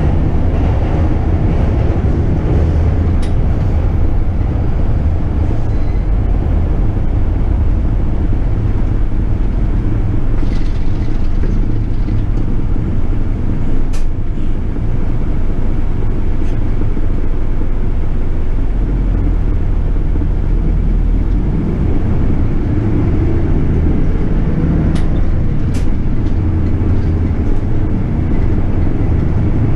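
Toei city bus running steadily with a constant low engine drone, with a few short clicks about halfway through and near the end.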